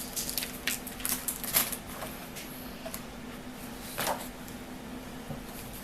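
Scattered light rustles and clicks of handling noise, several in quick succession at first and one more a few seconds later, over a faint steady hum.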